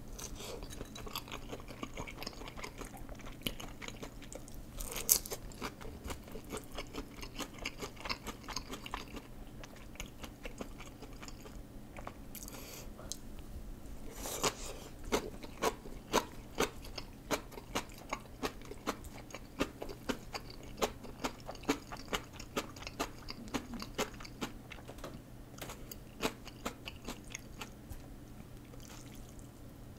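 Close-miked chewing with crisp crunches as a person bites into and eats fried shrimp tempura. Through the middle the crunches come in a steady run of about two a second.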